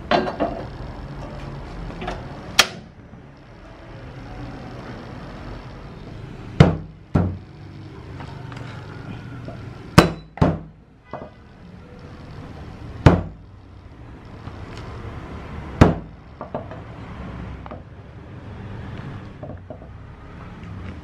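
A meat cleaver chopping down on a thick wooden chopping block: single heavy knocks every few seconds, some in quick pairs.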